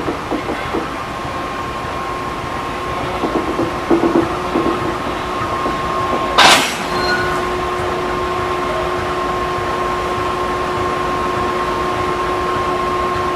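GE P40 diesel locomotive easing onto another locomotive and coupling up, its engine running with a steady hum. A few clanks about three to four seconds in, then one loud bang of the couplers striking together about halfway through.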